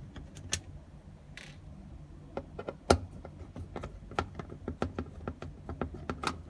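Screwdriver and small metal parts clicking and tapping while the two screws holding a washing machine's door lock are taken out. The clicks are sparse at first, then come several a second from about two seconds in, with one louder knock about three seconds in.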